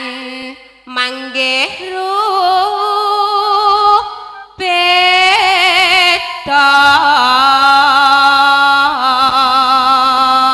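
A woman singing slow, long-held notes with a wide vibrato, a solo vocal line in the style of a Javanese sindhen, with a short breath break about four seconds in.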